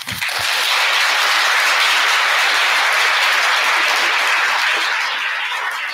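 Audience applauding. The clapping swells at once, holds steady, then starts to die away near the end.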